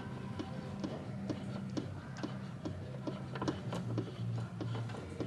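Steady, even ticking, a little over two ticks a second, over a low steady hum.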